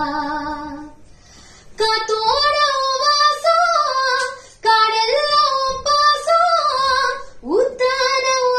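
A woman singing a Tamil film song alone, with no instruments, in long melismatic phrases. A held note fades out about a second in; after a short pause she sings on, breaks briefly near the middle, and slides up into a note near the end.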